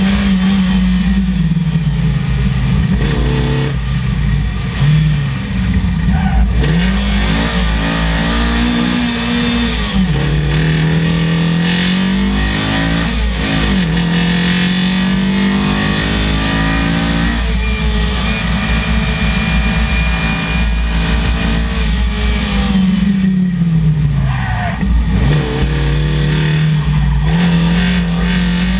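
Onboard sound of a Datsun 1200 rally car with a Nissan SR20VE four-cylinder engine driven hard: the engine note climbs, then drops sharply with each lift, brake and downshift, over a steady heavy rumble of wind and road noise.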